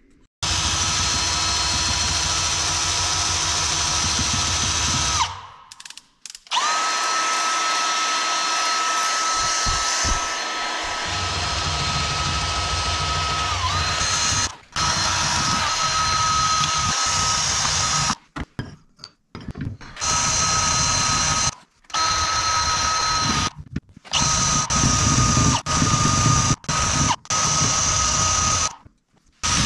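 Cordless drill spinning a wire wheel brush against a rusty steel bolt clamped in a vise, scrubbing off surface rust to uncover a blocked grease passage. The motor whines steadily in several runs with short stops and restarts, the runs growing shorter and choppier near the end.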